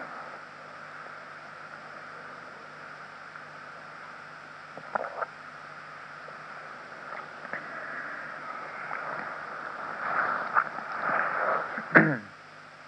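Steady background hiss with a low hum, broken by a few short, brief sounds, the loudest one near the end.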